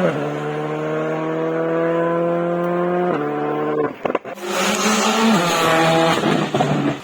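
Rally car engine under hard acceleration, its pitch climbing steadily, with a gear change about three seconds in. Around four seconds the engine briefly lets off with a few sharp cracks, then pulls hard again.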